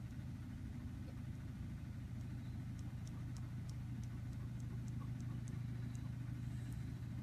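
A steady low mechanical hum, with a few faint light ticks over it.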